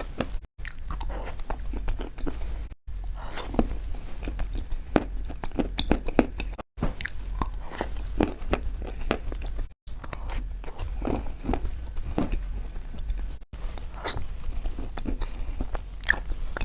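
Close-up crunching and chewing of chalk, with many irregular crackly bites and grinds. The sound is broken by about five brief dead-silent gaps where the recording cuts.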